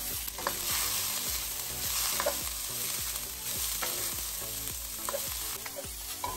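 Vegetables sizzling in hot oil in a hand-hammered wok as they are stir-fried, with a few light knocks and scrapes of the spatula against the wok.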